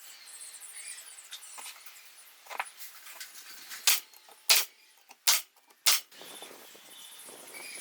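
A series of five sharp clicks or knocks, the loudest near the middle, over a faint hiss.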